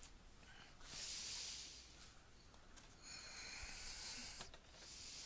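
Cardboard toy packaging box being lifted and slid away, making faint rustling and scraping in three soft, hissy bursts.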